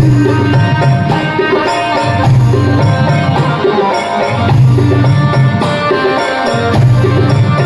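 Bhajan music with drum-like percussion keeping a steady rhythm under held melodic tones and a repeating bass line.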